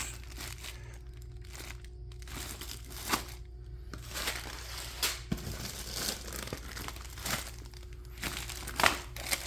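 Plastic bags and firework packaging crinkling and rustling as they are handled and rummaged through, with a few sharper crackles about three, five and nine seconds in.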